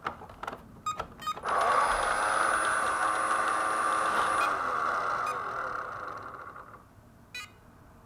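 A few handling knocks as the ILIFE V7s Plus robot vacuum is set down upside down, then it starts up and runs: its suction fan and side-brush motor whir with a thin high whine while the main brush stays still, the main-brush fault. After a few seconds the motors spin down and fade out, and a short click follows near the end.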